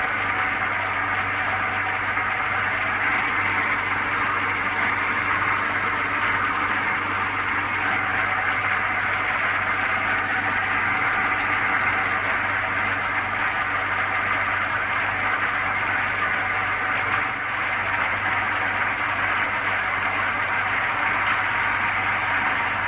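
Workshop vacuum running steadily, an even noise with a low hum underneath.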